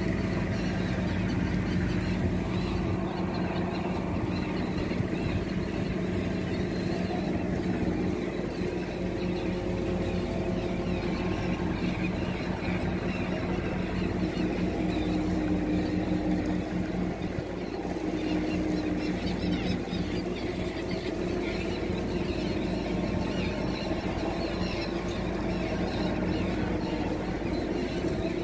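Fishing boat's engine running steadily at sea, a constant hum under a noisy wash.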